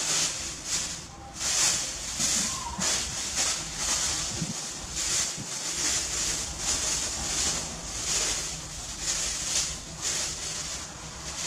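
Plastic bag rustling and crinkling in repeated short bursts, about one or two a second, as it is handled along with bundled greens.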